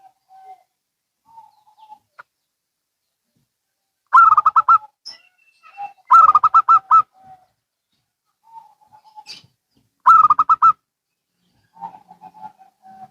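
Zebra doves (perkutut) cooing in turn. Three loud bursts of fast, pulsing coo notes come about 4, 6 and 10 seconds in, and softer, lower strings of notes sound between them.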